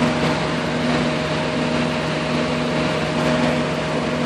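A machine running steadily: a low hum with a constant whine above it and a fainter tone pulsing on and off about twice a second.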